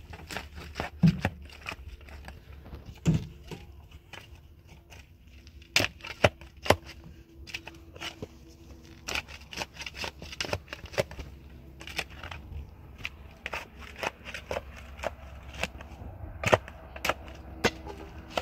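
Stones clacking and knocking in irregular sharp strikes as they are handled and set into a stone-and-mud wall, a few strikes much louder than the rest, over a low steady hum.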